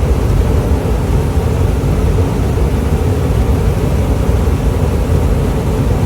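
Steady, loud drone of heavy harvest machinery running during a corn harvest, its engine rumble low and even throughout.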